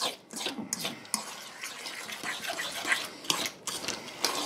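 A fork stirring stock-soaked bread dressing in a stainless steel mixing bowl: irregular scrapes and clinks of the fork against the metal.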